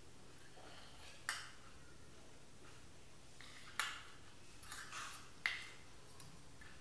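Metal spoon clinking against a stainless steel bowl three times, each clink ringing briefly, with a softer scrape of the spoon in the bowl just before the third.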